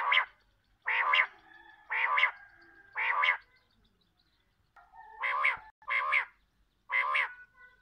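Quail calling from a cage: seven short calls spaced about a second apart, with a pause around the middle.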